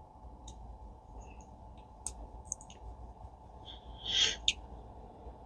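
Small metal parts and a screwdriver clicking lightly and irregularly while tiny Phillips screws are started into a spinning reel's pinion bearing retainer, with one short high squeak about four seconds in.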